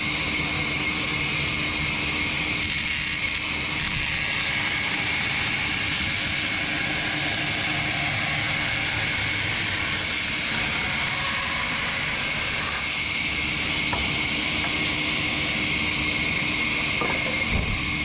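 Large sawmill band saw running and ripping a timber plank lengthwise: a steady, continuous machine noise with a high steady tone, and a lower tone that drops away about three seconds in.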